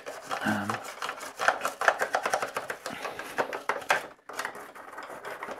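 Toothbrush bristles scrubbing the plastic hull of a vintage Star Wars Imperial Shuttle toy in quick scratchy strokes, working dust out of its grooves, with a brief pause a little after four seconds in.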